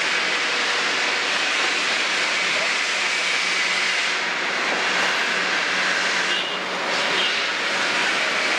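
Steady running of heavy diesel engines: a Kobelco SK350 excavator's six-cylinder Hino J08 diesel, idling with a loaded bucket held up, and a three-axle dump truck backing up to it. A few short high squeaks come a little past halfway.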